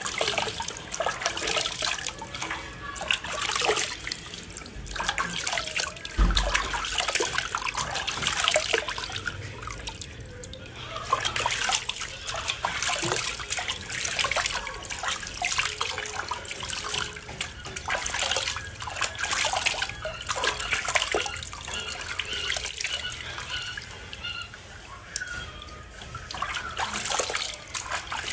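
Water in a basin splashing and pouring as a baby monkey is washed by hand, with water scooped up and poured over it in irregular splashes.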